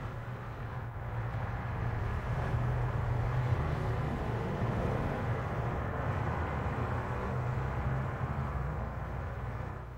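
A steady low rumble with a rushing hiss above it, a little louder in the middle and easing off near the end.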